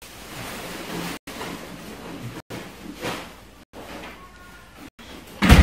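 Rustling and handling on a tabletop as a hand moves around a sheet of paper, then a sudden loud thump near the end.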